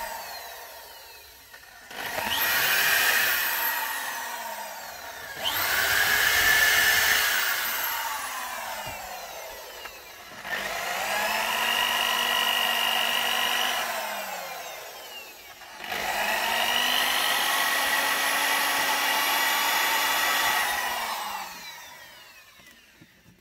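Electric power tool run four times: each time the motor whines up to speed, holds steady for a few seconds, then winds down as the trigger is released.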